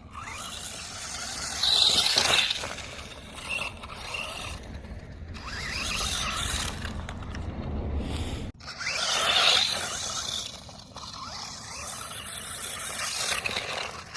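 FTX Outlaw RC truck's brushless motor whining in repeated throttle bursts, with tyres scrabbling and scraping over rough ground. The loudest bursts come about two seconds in and about nine seconds in.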